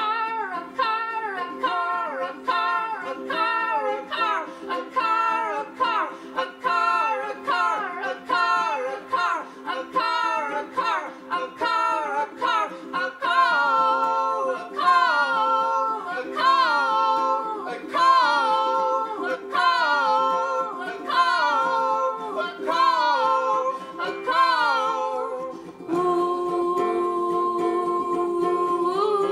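Singing voices over a strummed ukulele, in short quick phrases of about two notes a second above a low steady drone. Near the end the voice settles into one long held note.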